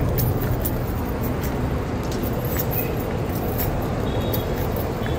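Steady low rumble of a moving road vehicle, with scattered small clicks over it.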